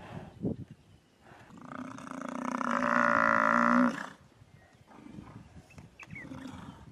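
A Cape buffalo bellowing in distress as lions bite into it. One long, pitched call begins about a second and a half in, swells in loudness, and cuts off sharply about four seconds in.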